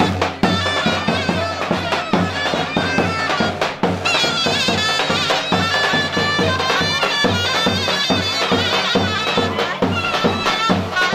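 Folk dance music: a shrill, wavering reed wind melody over a steady drum beat.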